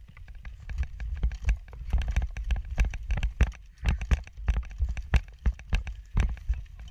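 Quick running footsteps on grass with gear rattling and thumping close to the microphone, a few irregular knocks each second, as the camera wearer runs.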